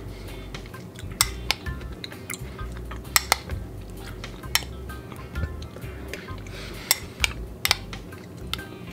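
Metal spoon clinking and scraping against a bowl while scooping thick yogurt, with about ten separate sharp taps spread through, over soft background music.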